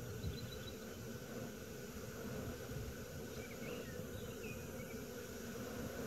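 Honeybees from a swarm humming steadily around a hive, under a low rumble, with a few short high chirps near the start and again around four seconds in.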